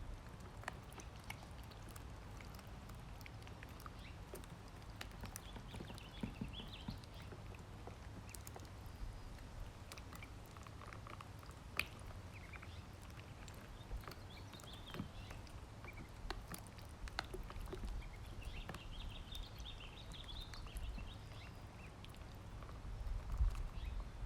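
Ducklings pecking at food, a scatter of small clicks, with brief clusters of soft high peeps now and then.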